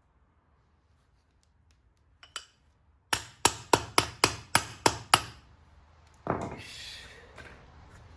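Hammer driving an air-conditioner compressor's magnet clutch pulley onto the compressor, using an old part as a drift: a light tap, then eight sharp ringing metal strikes, about three to four a second. A short scraping noise follows near the end.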